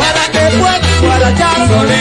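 Salsa music from a band, with trumpets, conga drums and maracas over a moving bass line.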